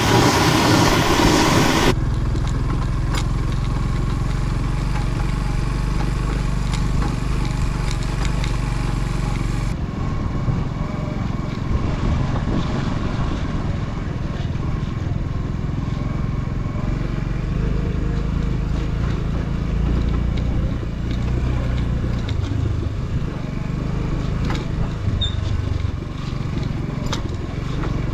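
Motorcycle engine running steadily on the move. The sound changes abruptly about two seconds in, from a loud rushing noise to a lower, steadier engine sound, and changes again about ten seconds in, when it turns duller.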